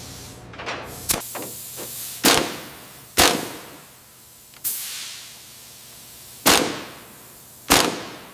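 A series of sharp bangs, six in all at uneven intervals, each dying away over about half a second.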